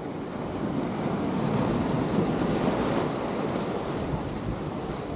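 Ocean surf washing, swelling a little around the middle, with wind rumbling on the microphone.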